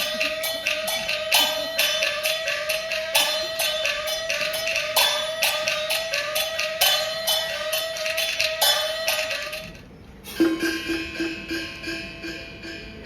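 Hebei Bangzi opera accompaniment: a fast, even beat of sharp clapper and percussion strikes under a short melodic figure repeated over and over. About ten seconds in the beat stops, and a single struck gong-like note rings and fades.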